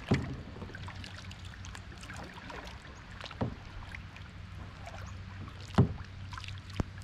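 Kayak being paddled: four sudden sharp thumps and splashes of the paddle, the loudest about six seconds in, over a steady low rumble of the boat moving on the water.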